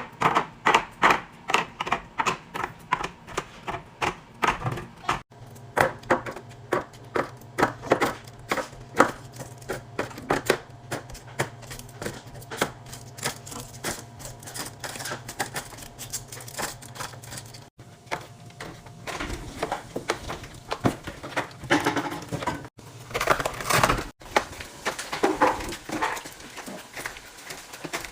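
Drink cans and bottles set one after another onto fridge shelves: a quick run of clinks and clacks, about two or three a second at first, over a low steady hum.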